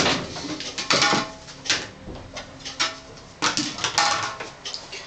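Clear plastic food container being handled and set down on a kitchen scale: an irregular string of short plastic knocks and scrapes.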